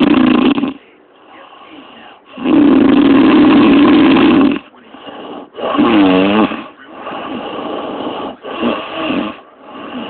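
A woman snoring loudly in her sleep. Rasping snores come every two to three seconds, the longest about two seconds, with quieter breaths between them; one snore a little past the middle has a wavering, buzzing pitch.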